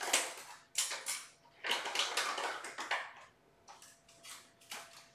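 Rummaging through supplies in a low cabinet: a string of irregular rustling, crinkling and clattering bursts, quieter after about three seconds.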